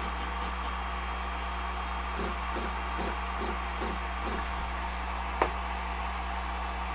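Steady electric machine hum with fan-like noise, with a few faint short warbles in the middle and one sharp click about five and a half seconds in.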